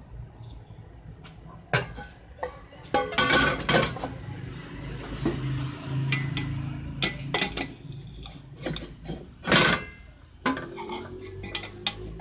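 Aluminium cooking pot and lid clattering, then a metal spoon knocking and scraping against the pot while stirring cooked rice: a run of sharp clanks and knocks, one loud knock about three quarters of the way through.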